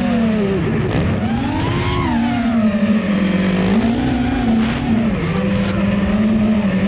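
FPV drone's electric motors and propellers whining, the pitch rising and falling as the throttle changes, with several motors at slightly different pitches.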